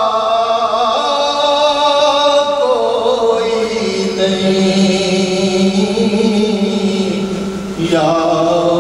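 A man singing an Urdu naat, a devotional poem in praise of the Prophet, in long drawn-out melodic phrases, with a short break for breath about eight seconds in.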